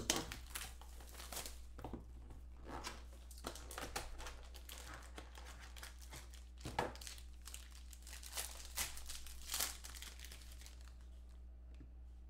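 Foil trading-card pack wrappers and plastic box packaging crinkling and rustling as they are handled, in a run of short crackles that dies away near the end.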